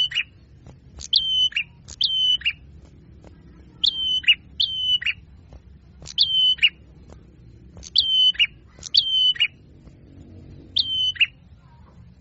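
A small songbird's call, repeated about seven times and mostly in pairs: each a quick note dropping from very high into a short held whistle that then falls lower, the same every time, like a looped lure-call recording for trapping small birds.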